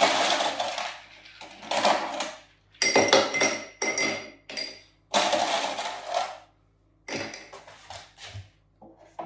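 Ice cubes rattling and clinking as they are dropped into a tall glass tumbler, in a series of separate bursts with bright glassy rings among them.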